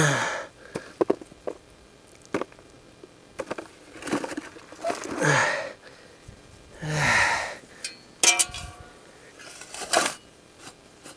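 A man's hoarse, breathy vocal sounds, three long ones falling in pitch, with sharp knocks and clicks between them.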